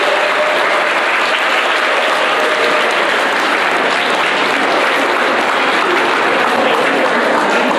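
An audience of schoolchildren applauding steadily.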